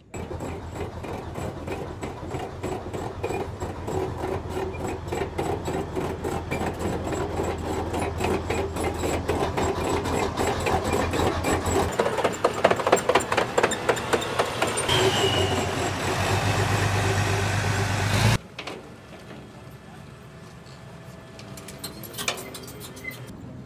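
M1A1 Abrams tank on the move up close: a dense, rapid metallic clatter of track over a steady engine drone, growing louder and then cutting off abruptly about eighteen seconds in, after which a quieter steady engine noise remains.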